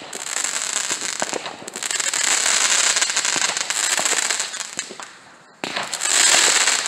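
Consumer fireworks shooting up sparks with a loud, dense hissing crackle. It fades about five seconds in, then starts again suddenly with another spray.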